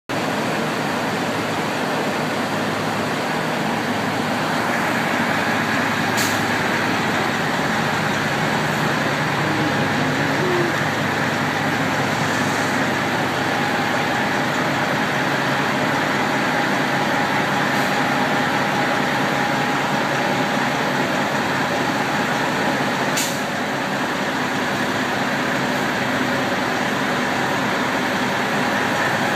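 Semi-truck diesel engines idling: a steady rumble and hiss with a faint steady whine. A few sharp clicks come through, about six seconds in, again near eighteen and twenty-three.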